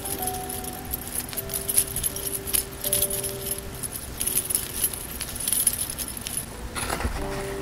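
Small metal earring parts clinking and jingling as they are handled in the fingers close to the microphone, with a brief rustling scrape and soft thump near the end. Quiet background music with slow held notes plays underneath.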